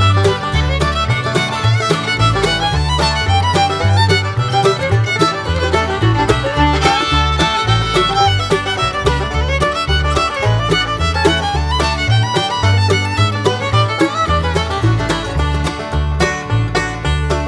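Upbeat bluegrass-style background music with fiddle and banjo over a steady bouncing bass line.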